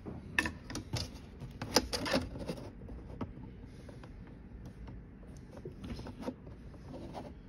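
Steel tape measure being pulled out and set against a cabinet drawer opening: a quick run of clicks and light knocks in the first couple of seconds, a couple more near the end, with quiet handling noise between.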